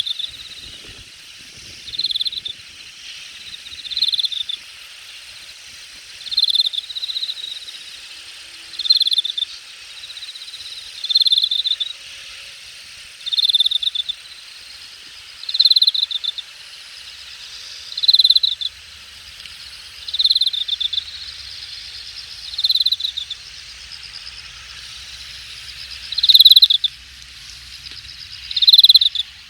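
Late-summer grass insects calling: one insect repeats a short, loud pulsed phrase about every two seconds over a steady high-pitched chorus of other insects.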